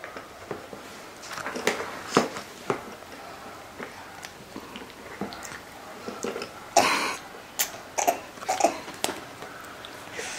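A pet chewing a biscuit: irregular small crunches and clicks, with one louder rasping burst like a cough about seven seconds in.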